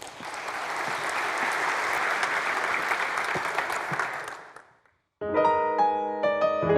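Audience applauding, fading away after about four seconds; after a brief silence a piano starts playing chords.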